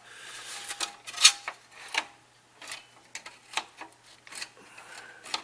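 Push buttons of a 1949–1952 Pontiac Chieftain AM car radio being pressed one after another, giving a string of uneven mechanical clicks, the loudest about a second in.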